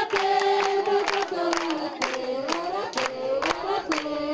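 A group of women and children singing together in unison, clapping along about twice a second.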